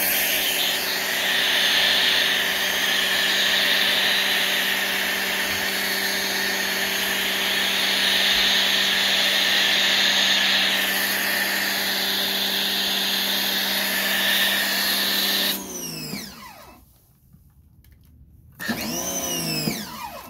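Electric pressure washer running with a foam cannon: the pump motor hums steadily under the loud hiss of foam spraying onto the car. When the trigger is released about 15 seconds in, the motor winds down with a falling whine. Near the end it briefly starts again for about two seconds.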